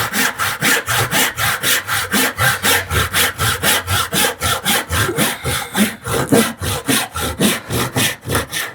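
Fine-toothed hand saw cutting a tenon in a thin wooden strip, in quick even strokes about four or five a second. It stops abruptly near the end.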